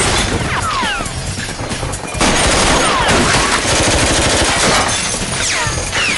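Rapid handgun gunfire in a shootout, many shots overlapping with hardly a break, mixed with film score music. There is a short lull just before two seconds in, then the firing resumes as heavily.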